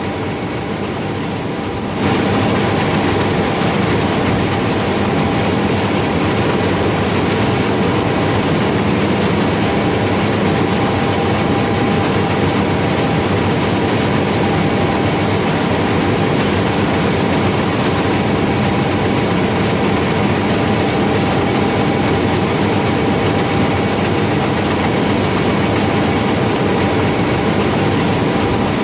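John Deere S770i combine harvester running while harvesting rice: a steady drone of its six-cylinder diesel and threshing machinery with a faint held whine over it, getting louder about two seconds in.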